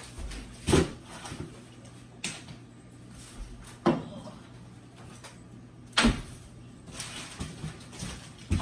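Four sharp knocks and bangs, spaced two to three seconds apart: a freezer door opening and shutting as frozen vegetable bags are put away.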